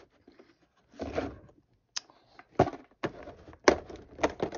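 Handling clicks and knocks from a plastic carbon monoxide detector being turned over in the hands, with a short rustle about a second in and several sharp clicks in the second half.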